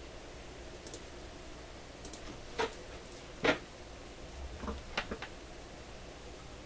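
A few short clicks and knocks, the sharpest about three and a half seconds in, with a brief low thump, over a steady low hum: handling noise as a small handheld camera is picked up and moved.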